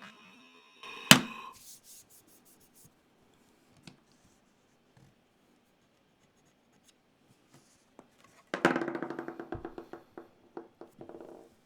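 Small hard keyboard parts handled during a mechanical keyboard build: a sharp click about a second in, a few light ticks, then near the end a rapid clatter of small pieces that dies away over about three seconds.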